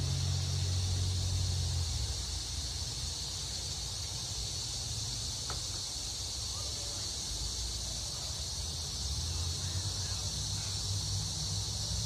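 Steady high-pitched outdoor insect chorus, with a low rumble, like distant traffic, that fades out about two seconds in and comes back near the end.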